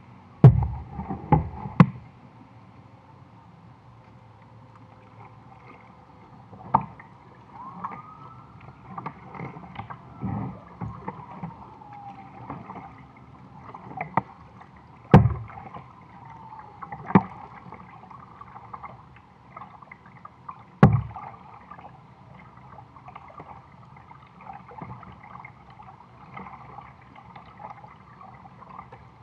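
Kayak being paddled through calm water, with irregular sharp knocks and splashes from the paddle; the loudest come about a second in and around fifteen and twenty-one seconds in.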